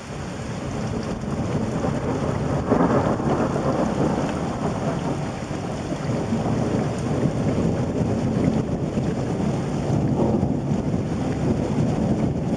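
Thunder rumbling long and low over steady rain. It builds over the first two seconds, peaks about three seconds in, then keeps rolling.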